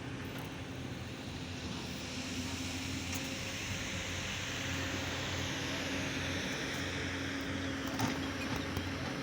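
An engine running steadily, with a broad hiss that builds from about two seconds in.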